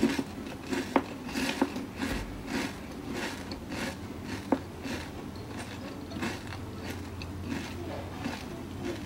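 A person chewing crisp fried popiah-skin rolls coated in milk chocolate: short, dry crunches about twice a second. The crunch shows the rolls are very crisp.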